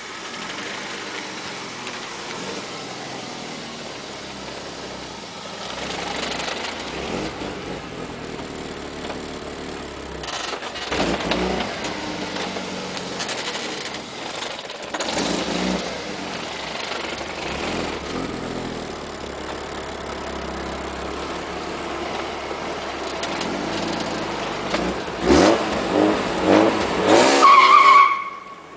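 BMW E30 engine running, revved a few times and then given a quick run of blips near the end. The owner finds the noise it makes suspicious. A brief high steady tone sounds just as the revs fall.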